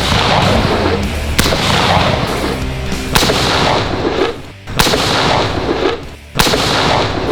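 Four gunshots, evenly spaced about a second and a half apart, each trailing off in a long reverberant tail, over background music.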